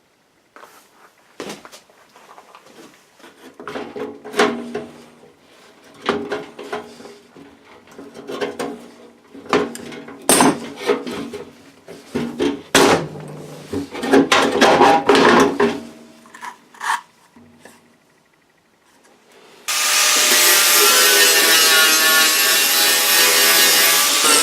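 Irregular scraping and rubbing strokes of hand-tool work on the old children's wheelbarrow, with scattered knocks. They stop at about 17 s, and background music comes in loudly about 20 s in.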